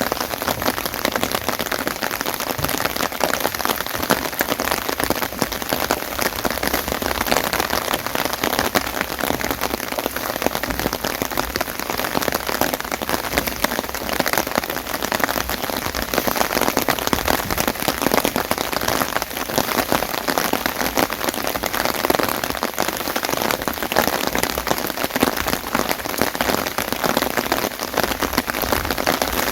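Steady rain falling, a dense even patter of many small drop impacts.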